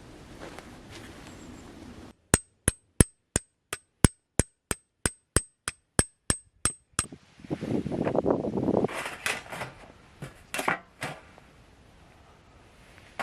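A run of about fifteen sharp, evenly spaced clicks, roughly three a second, against dead silence. After it come rustling and irregular knocking handling noises.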